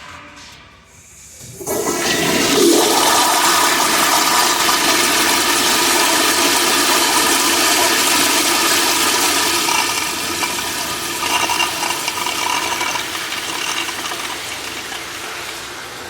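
Crane Rapidway toilet flushing: a loud rush of water starts suddenly about two seconds in and carries on steadily, easing off a little near the end.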